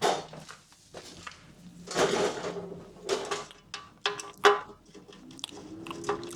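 Hand tools and metal hardware clinking, scraping and knocking while a spacer and bolts are worked into a motorcycle toolbox bracket. Some clinks ring briefly, and there is one sharp knock past the middle.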